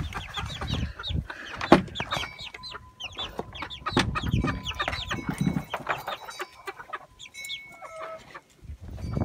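Chickens clucking, mixed with many short, high peeps from young chicks. A single thump comes about two seconds in.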